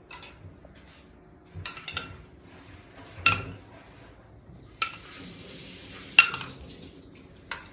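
Metal kitchenware clinking and knocking: a handful of separate sharp clinks, with a short stretch of hiss in the middle.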